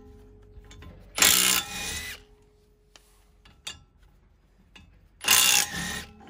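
HiKOKI 36V cordless impact wrench running in two short bursts, about a second each, on the nuts of a wheel spacer on a car's hub, one about a second in and one about five seconds in.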